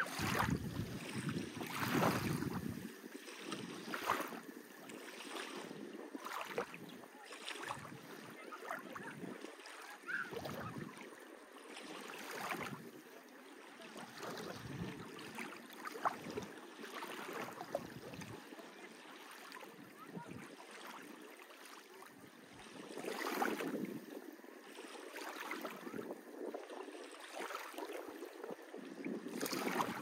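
Small waves lapping and splashing at the water's edge in uneven swells, louder at moments, with some wind.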